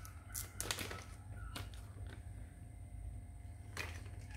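Small seals and parts from a valve repair seal kit being tipped out and handled on a tabletop: a few scattered light clicks and taps, over a steady low hum.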